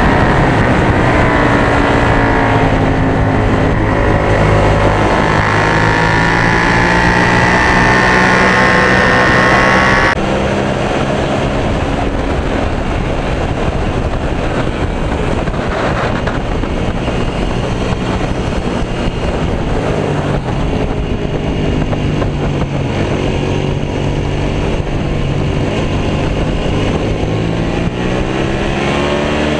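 Suzuki SV650 V-twin motorcycle engine at racing speed, heard from the onboard camera. It holds high revs for about the first ten seconds, then the sound changes abruptly and drops a little in level. Later the revs fall and climb again near the end.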